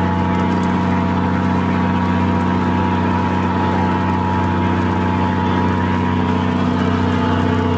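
Fishing trawler's inboard engine running at a steady pitch, a constant low drone.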